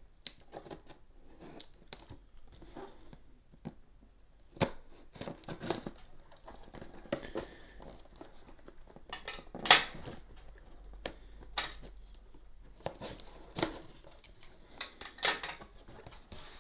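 Cardboard box being handled and opened: irregular rustles, scrapes and taps of its flaps and contents, the loudest about ten seconds in.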